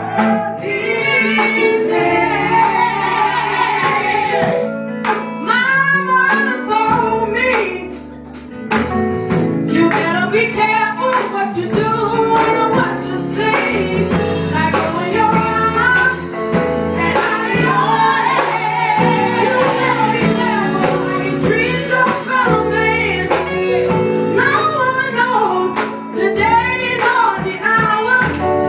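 Live gospel song: a woman sings lead into a microphone, with a second woman's voice and electric guitar and bass accompaniment. The music dips briefly about eight seconds in, then carries on.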